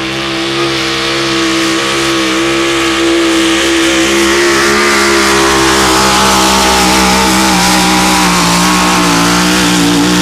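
Modified pulling pickup's engine running at full throttle under heavy load as it drags a weighted pulling sled, holding steady at high revs. It gets louder over the first few seconds.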